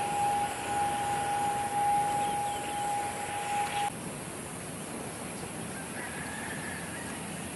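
ATR 72-600 turboprop airliner on landing approach: engine and propeller noise with a steady high-pitched whine, cut off abruptly about four seconds in. Then a quieter steady rush of distant aircraft engine noise and wind.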